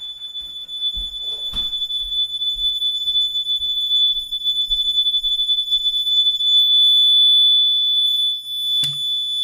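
Fire alarm mini horn, a 24-volt unit run underpowered on 12 volts DC, sounding a continuous, steady, high-pitched tone.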